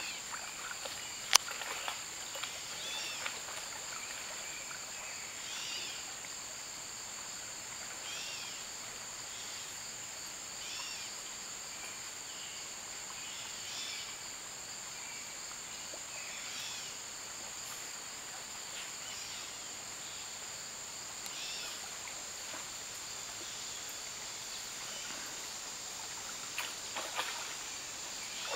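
Steady insect chorus of crickets or katydids, holding constant high-pitched tones, with fainter short calls every few seconds. A single sharp click about a second and a half in.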